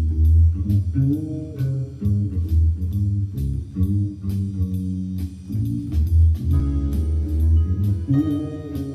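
Fretless electric bass played fingerstyle: a melodic, bluesy bass line with notes that slide in pitch, over an accompaniment with a steady beat. More sustained higher tones join about six and a half seconds in.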